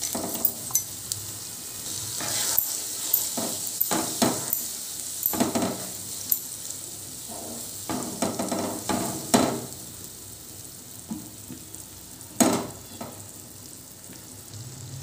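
Onions sizzling in hot oil in a nonstick kadai as a wet ginger-garlic paste is poured in and stirred through with a wooden spatula. The frying hiss is steady, and the spatula scrapes the pan in irregular strokes, one of the sharpest near the end.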